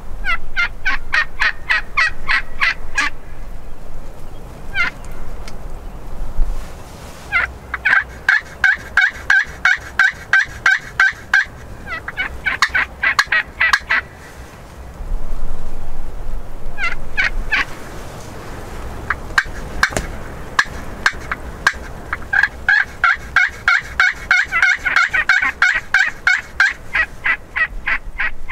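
Wild turkeys gobbling, in several bursts of rapid, evenly repeated notes with short pauses between them.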